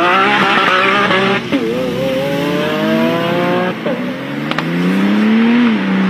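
Lamborghini supercar accelerating hard through the gears: the engine note climbs steadily in pitch and drops sharply at each quick upshift, about a second and a half in, near four seconds, and near the end.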